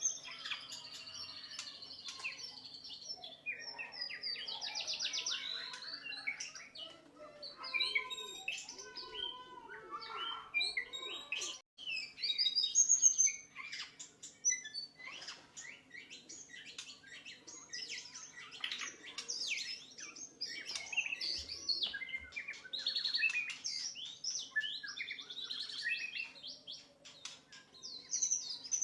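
White-rumped shama (murai batu) singing a long, varied song of whistles, rapid trills and quick chattering phrases, broken by a brief gap about twelve seconds in. A faint steady hum lies underneath.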